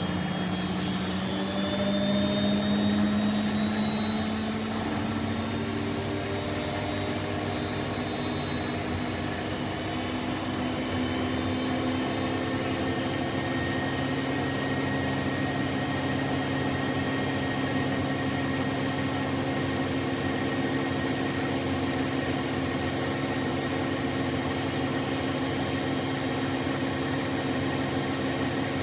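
Bosch Exxcel 1400 washing machine spinning: its motor whine rises in pitch over roughly the first ten seconds as the drum speeds up, then holds steady at full spin speed.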